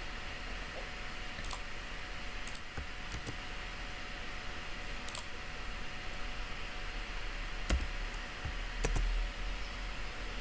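A handful of scattered, sharp clicks from a computer keyboard and mouse, a few of them doubled, over a steady low hum.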